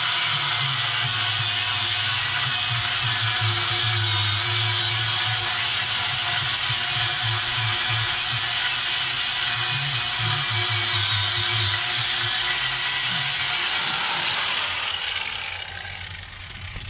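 Handheld power tool burnishing the inner liner rubber of a semi truck tire around a screw puncture, to prepare it for a patch. It runs at a steady high whine, then is released about three-quarters of the way through and spins down with a falling whine.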